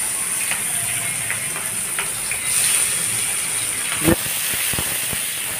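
Sliced onions sizzling steadily in hot oil in a kadai, just after going into the pan. About four seconds in, the spatula stirring them clicks and scrapes against the pan a few times.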